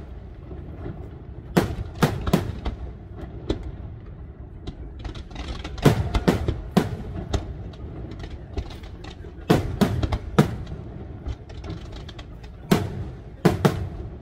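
Aerial firework shells bursting: sharp bangs in quick groups of two or three, a group every few seconds, over a low rumble.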